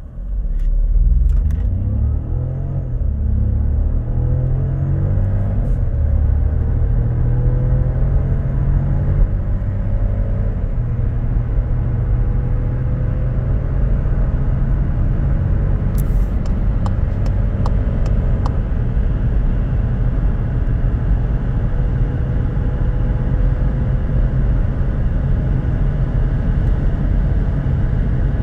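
2024 Skoda Fabia's 1.0 TSI three-cylinder turbo engine accelerating hard from a standstill, heard inside the cabin. The engine note climbs through each gear and drops back at each quick shift of the 7-speed DSG gearbox, and road and wind noise grow as the speed passes 160 km/h.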